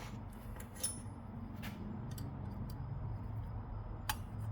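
A few light, separate clicks and taps of small metal parts and tools being handled, over a steady low hum.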